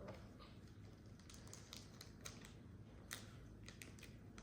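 Near silence: faint room tone with scattered light, irregular clicks and ticks.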